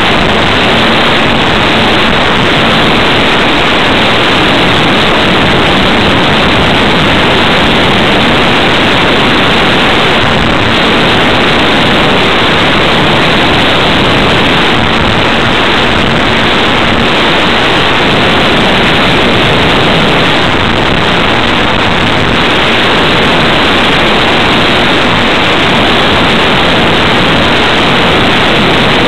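Loud, steady rush of airflow over the onboard camera's microphone on a ParkZone T-28 Trojan RC plane in flight, with a faint low hum coming and going underneath.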